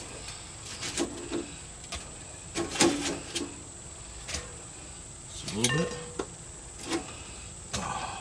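Metal kitchen tongs clicking and knocking against a deep fryer basket and a glass bowl as fried potato wedges are lifted out of the oil, in scattered separate taps.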